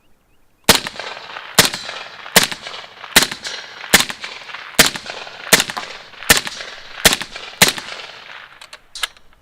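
Ten suppressed semi-automatic shots from a Century C93 5.56 rifle fitted with a Dead Air Sandman S suppressor, fired at a steady pace of about one every 0.8 seconds, each a sharp crack with a short ringing tail. Loud, near the limit of hearing safe. A few faint ticks follow the last shot.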